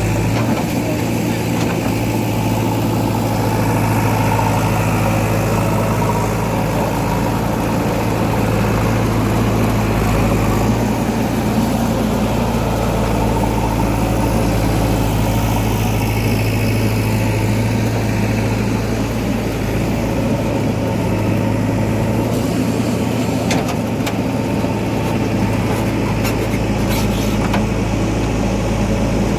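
Heavy diesel machine engine running steadily with a constant low hum, with a few short knocks in the last few seconds.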